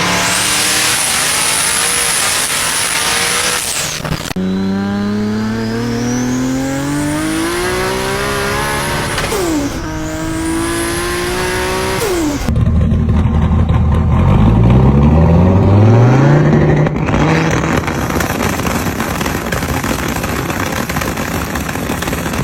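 Turbocharged car engines accelerating hard in three separate clips, with a high turbo whistle over the engine note. In the first the whistle is steady. In the second the engine and whistle climb together twice, with a brief drop between pulls. The last is louder and deeper, its pitch climbing in repeated steps through the gears.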